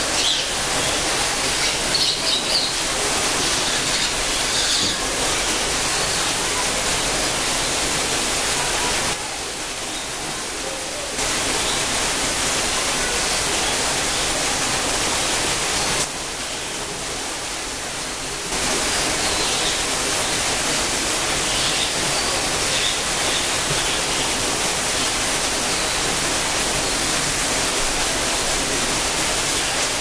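Steady rushing noise of falling water, like a waterfall in the exhibit. It drops a little quieter twice, for about two seconds each time.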